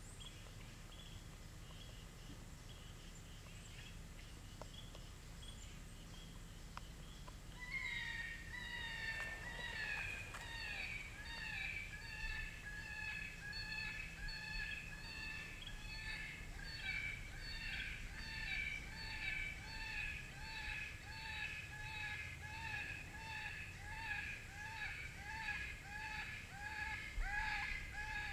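FoxPro CS24C electronic predator caller playing a snowshoe hare distress call: a high, repeated crying that starts about eight seconds in and keeps going, each cry bending in pitch. Before it starts there is only faint outdoor background.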